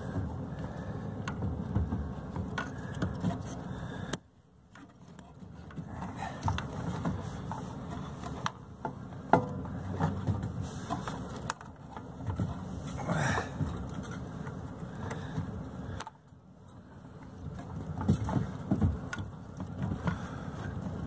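Hands working a plastic fuel pump module down into a fuel tank through a floor access hole: irregular scrapes, clicks and knocks of plastic against metal, with two brief lulls.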